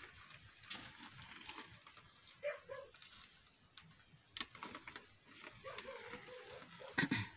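A dog whining and yipping in short calls, with a longer whine just past the middle and a louder yelp near the end.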